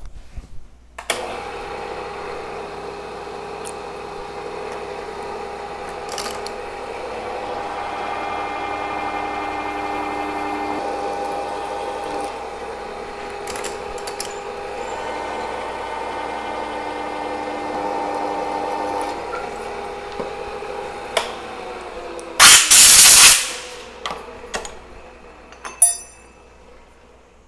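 Bridgeport vertical milling machine's spindle running steadily while drilling a through hole in a small metal part, then switched off and winding down. A loud hiss of about a second follows, then a few metal clinks near the end.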